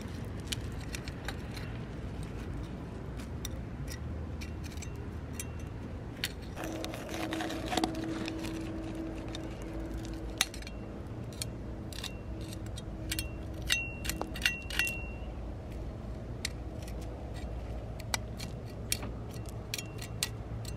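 Metal hand trowel digging into gravel and soil, scraping and clinking against the stones in irregular sharp clicks as gravel is pushed aside. A faint steady hum sits underneath for several seconds in the middle.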